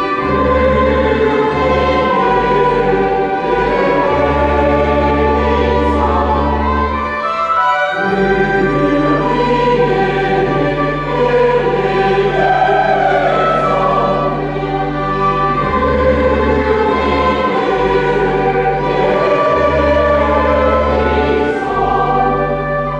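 Church choir singing a Mass setting on Christmas carols with organ accompaniment. Long-held low organ notes sound under the voices, and both break off briefly about eight seconds in.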